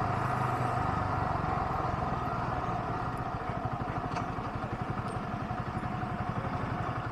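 Yamaha R15's single-cylinder engine running at low revs as the motorcycle rolls slowly, a steady, evenly pulsing note.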